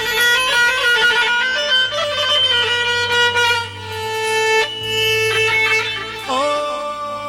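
Instrumental interlude of Arabic party music: a violin-toned melody with ornamented slides and held notes over a steady low bass.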